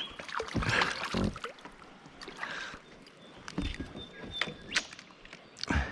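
Water splashing and irregular knocks and taps against a kayak's hull while a small Australian bass is played and landed beside the kayak.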